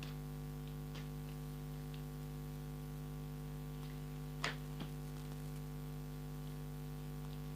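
Steady electrical hum on the recording, with a few faint clicks or taps, the clearest about four and a half seconds in.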